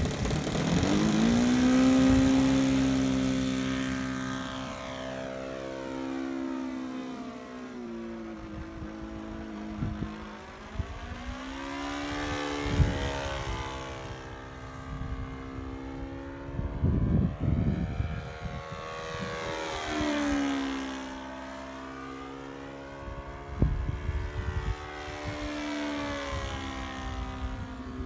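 Saito FG-21 single-cylinder four-stroke gasoline engine of an RC Christen Eagle biplane, swinging a 15x8 propeller. It is throttled up for takeoff, its pitch rising about a second in, then it drones on at high power through aerobatics, the pitch rising and falling as the plane passes and climbs away. A few short low thumps come through along the way.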